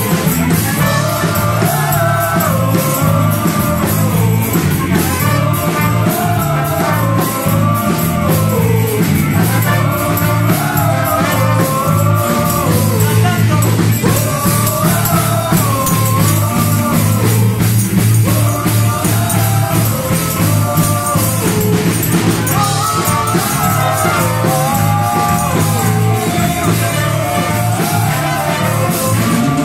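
A live church band playing a medley: brass (trumpet, saxophone, trombone) and drum kit with bass, under singers on microphones carrying a held, swaying melody. Loud and continuous, with a steady beat.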